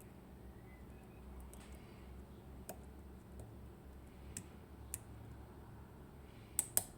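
Lock pick working the pin stacks of an IKON SK6 eurocylinder during single-pin picking: faint scattered metallic clicks, with two sharper clicks close together near the end.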